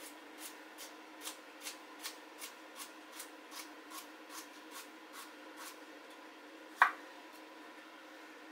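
Kitchen knife slicing a carrot on a chopping board: short, even cuts at about two and a half a second for some five seconds, then one louder knock nearly seven seconds in.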